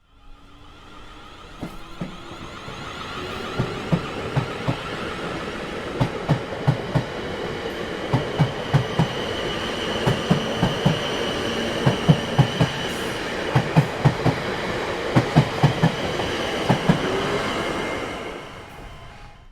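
A train running along the rails, its wheels clattering over rail joints in quick repeated groups of two and three beats. The clatter grows louder toward the middle and fades away near the end, over a steady high whine.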